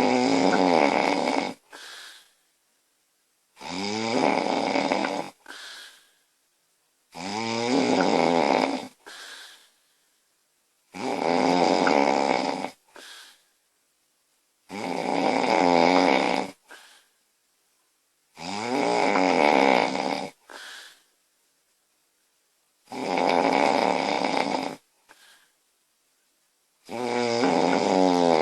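A woman snoring loudly in her sleep: a long snore about every four seconds, each followed by a short, softer breath.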